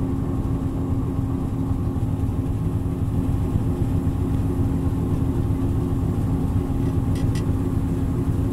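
Diesel locomotive engine running steadily, heard from inside the cab as a low drone with a steady hum, while the train rolls slowly. Two faint clicks come near the end.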